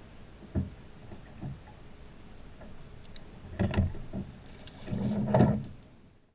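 Water splashing and a few knocks against the side of an aluminum fishing boat as a blue catfish is let go over the gunwale. The knocks come singly at first, then in a louder cluster, and the loudest, longest splash comes about five seconds in, fading out at the very end.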